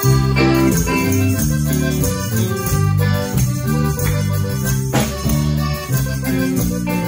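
Live band playing an instrumental passage: accordion carrying the melody over electric bass, electric guitar and drum kit, with a few sharp drum or cymbal hits.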